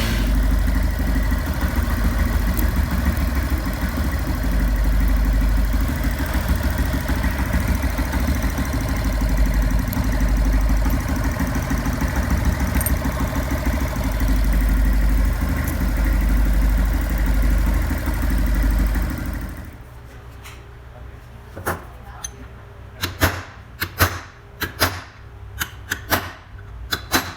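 Yamaha Fazer 150 single-cylinder engine idling steadily, carrying the whining noise the owner likens to a bad bearing. The engine is switched off about twenty seconds in, followed by several sharp clicks and knocks.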